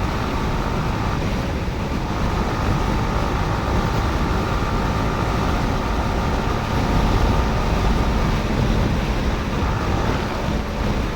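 Yamaha R15 V4's 155 cc single-cylinder engine running at a steady cruise, with wind noise on the rider's microphone.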